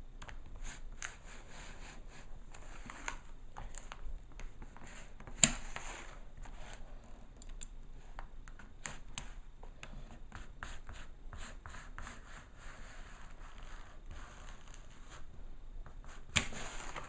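Scissors cutting through a plastic blister package, with small clicks and scratching. There is a sharp snap about five seconds in and another near the end.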